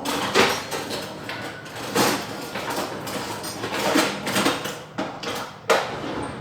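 Rice being washed by hand in a rice cooker's inner pot, the grains swished and rubbed in the rinse water against the pot in repeated strokes.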